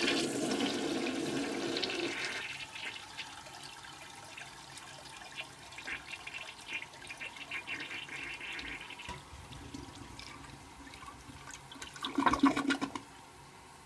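Toilet flushing after a muriatic acid cleaning meant to cure a slow flush: a loud rush of water for about two seconds, then quieter uneven running water, with a short louder burst about twelve seconds in.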